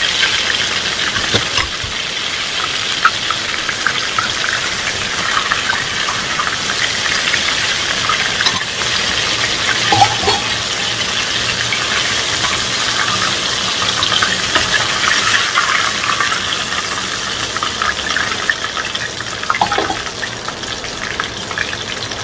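Breaded chicken thighs deep-frying in hot oil in a steel wok, a steady sizzling and crackling. A few sharp clicks of metal tongs against the pan come as pieces are lifted out.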